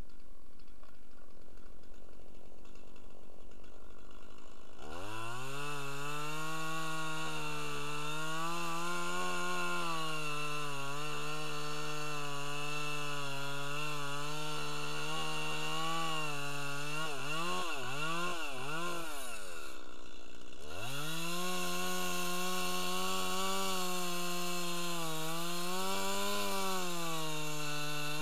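Stihl two-stroke chainsaw throttling up about five seconds in and running at high speed as it cuts into a large pine trunk. About two-thirds of the way through, its pitch wavers and sags and the engine drops away for a moment, then it revs back up and keeps cutting.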